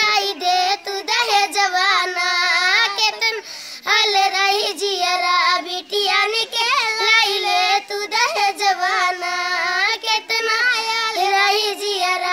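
Two children, a boy and a girl, singing a song together without accompaniment, with a short pause for breath about three and a half seconds in.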